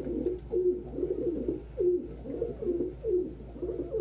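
Domestic pigeon cocks cooing over and over, a run of repeated coos that each drop in pitch, coming one after another with short gaps: the cooing of males squaring off in a squabble.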